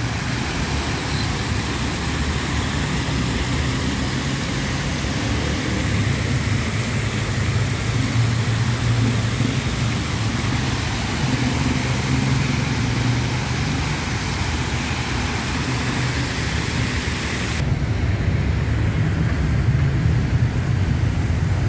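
Water cascading down a tiered fountain: a steady rushing hiss over the low hum of city traffic. The water sound cuts off suddenly near the end, leaving only the traffic.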